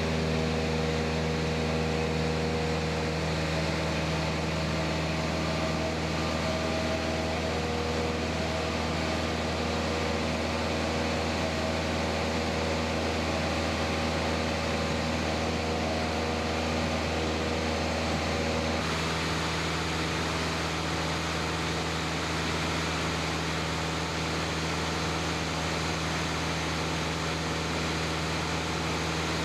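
Single-engine Cessna's piston engine and propeller at takeoff power, heard inside the cabin: a loud, steady drone through the takeoff roll and climb-out. The tone shifts slightly about nineteen seconds in.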